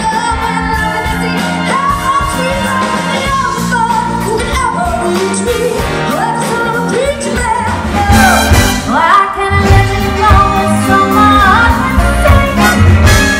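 A female vocalist singing a pop ballad with a live band of drums, keyboards, guitars and horns. The music gets louder and fuller, with heavier bass, about eight seconds in.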